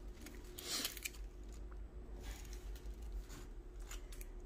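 Faint rustling as a stack of freshly opened Prizm football trading cards is handled and slid through the fingers, a few soft swishes about a second apart.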